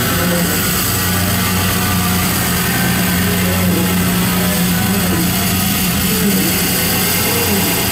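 Loud amplified drone from keyboard and effects during a live band set: a steady low hum held under a wash of distorted hiss, with a few wavering pitch glides near the end.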